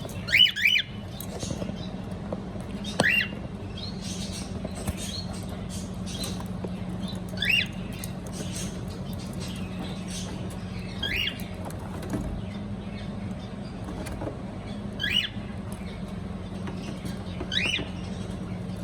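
Cockatiel giving short chirping calls, two quick ones at the start and then single calls about every four seconds, over a steady low hum.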